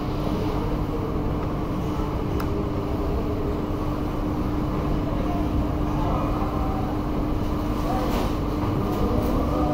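Steady machine hum: a constant low tone over an even rumbling noise, unchanging throughout.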